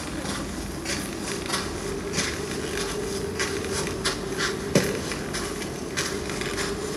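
A steady low hum with scattered irregular clicks and rustles over it, and one sharper knock a little before five seconds in.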